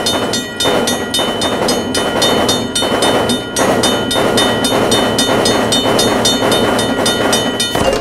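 Railroad crossing bell ringing in rapid, even strokes over the rumble of a passing train. Both cut off suddenly near the end.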